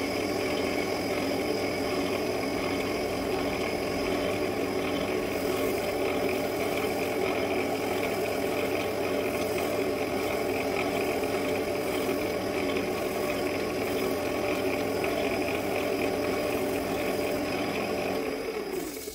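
Wood lathe running at steady speed with a bowl spinning on it: an even motor hum with a steady whine. Near the end it is switched off, and the pitch falls as it spins down.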